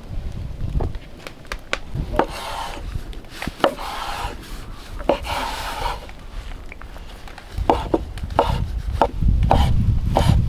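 Knife chopping on a wooden board: irregular sharp chops with scraping strokes between them.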